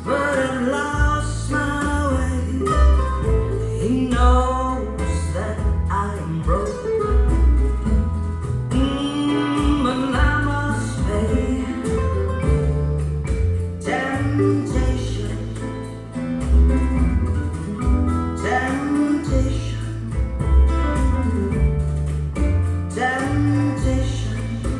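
A recorded song with a singing voice, plucked guitar and a deep bass line moving from note to note, played back through Thiel CS 2.2 floor-standing loudspeakers.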